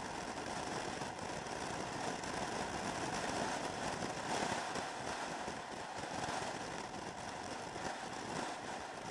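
Motor scooter riding at a steady speed: an even rushing noise of the ride with the engine under it.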